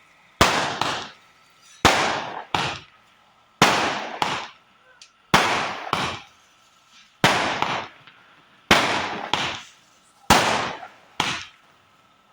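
A multi-shot firework cake firing in sequence: sharp bangs come in pairs about every second and a half to two seconds, each pair a louder bang followed about half a second later by a shorter one.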